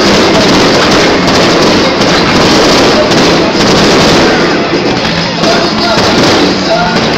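A dense barrage of fireworks: aerial shells bursting so quickly that the bangs run together into one continuous loud noise.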